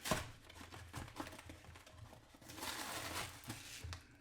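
Packaging being opened by hand: a sharp rip at the start, then scattered rustling and small handling knocks, with a longer stretch of rustling a little past halfway.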